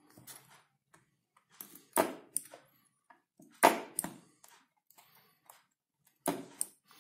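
Battery spot welder firing three times through a ZBU-4.2 spring-loaded electrode holder onto 0.15 mm strip. Each weld is a sharp snap, triggered by the holder's built-in microswitch once the springs reach the set pressing force. Fainter clicks come between the welds.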